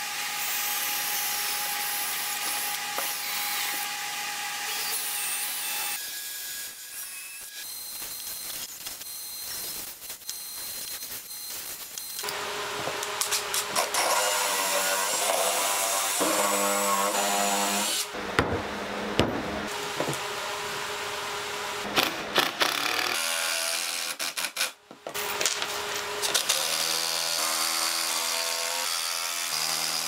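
Cordless drill driving screws into a wooden frame. The motor whine rises and falls with the load, in several runs separated by short pauses, with a few knocks of wood being handled between them.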